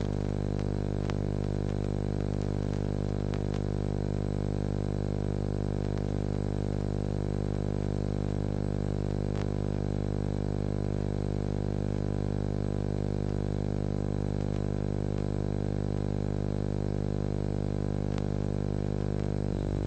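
Steady electrical buzz: a mains hum with a long ladder of overtones, unchanging in level, with a few faint clicks.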